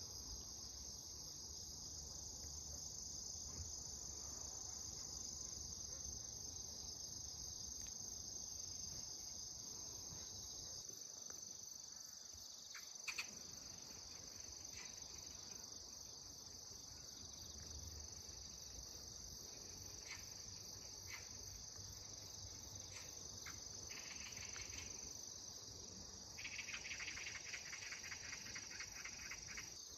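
Crickets and other autumn insects chirring in a steady, high, continuous drone. For the last few seconds a lower, rapidly pulsing insect trill joins in.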